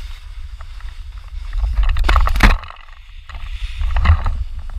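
Skis scraping and carving over packed snow, with steady wind rumble on the microphone. There is a louder scrape about two seconds in and another near four seconds.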